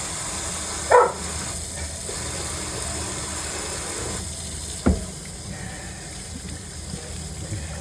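A dog barking twice, short and sharp, about a second in and again about five seconds in, over a steady rush of running water.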